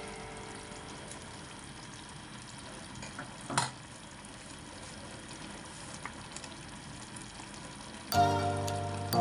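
Ground pork, potato and carrot stew simmering in a frying pan, with a steady, low sizzle and a single knock about three and a half seconds in. Background music comes in near the end.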